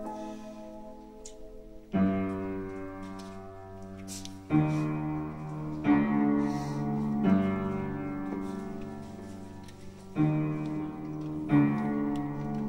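Slow, solemn piano music: sustained chords struck one at a time, a second or two apart, each left to ring and fade.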